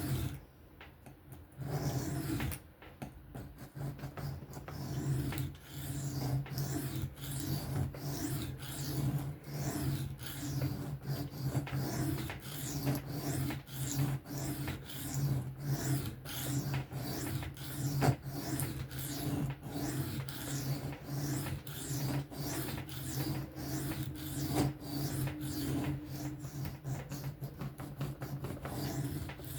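Knife blade being drawn freehand across a diamond sharpening plate, in rapid repeated rasping strokes.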